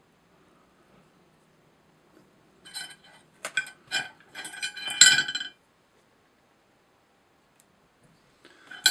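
A run of small metallic clinks with a bright ringing, starting a few seconds in, and one more short clink near the end: small metal fly-tying tools being handled and set down against each other.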